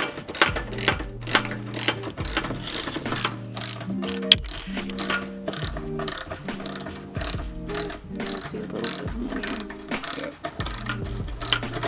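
Background hip-hop-style music with a steady beat: crisp regularly spaced hi-hat and snare hits over stepping chords and deep bass notes that slide downward.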